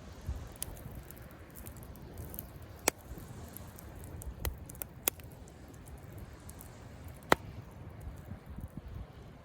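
Wood campfire crackling, with a few sharp pops standing out, the loudest about seven seconds in, over a low steady rumble.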